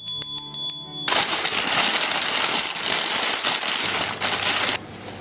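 A small handbell shaken rapidly, ringing about half a dozen quick strokes for roughly a second, then stopping. A loud, even rustling noise follows and lasts until near the end.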